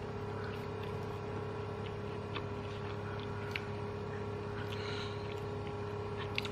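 Steady low machine hum, with a few faint, short clicks and smacks of eating by hand: fingers working rice and chewing.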